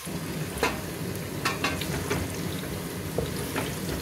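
Sliced onions and garlic sizzling in hot oil in a stainless steel pressure cooker as they brown. The sizzle grows louder right at the start, and a spatula stirring them scrapes and knocks against the pot several times.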